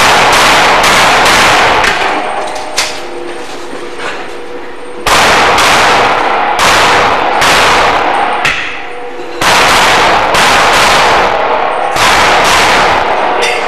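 Three strings of rapid practical-pistol fire, each a few seconds long. The shots come a fraction of a second apart and run together, overloading the recording, with short pauses between strings.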